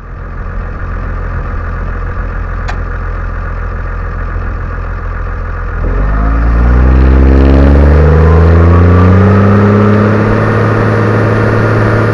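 New Holland T7030 tractor's six-cylinder diesel engine running steadily, then revving up about halfway through: its pitch climbs over several seconds and holds high and louder. A single sharp click about a third of the way in.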